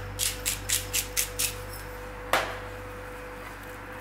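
Salt being put on snapper in quick, rhythmic scratchy strokes, about four a second, that stop about a second and a half in. A single sharp knock follows a little after two seconds.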